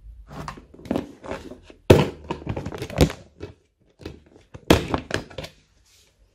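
Crackling and sharp knocks from handling foam-bead slime and clear plastic slime tubs. The loudest knocks come about two and three seconds in, with another cluster near five seconds.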